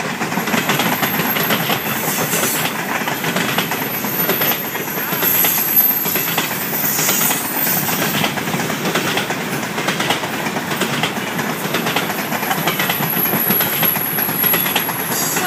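Freight train of open-top hopper cars rolling past, a steady loud rumble with the wheels clattering over the rail joints.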